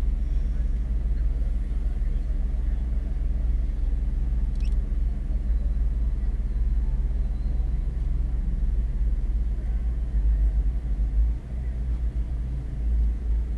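Nissan GT-R's twin-turbo V6 idling steadily, heard from inside the cabin while the car sits stationary.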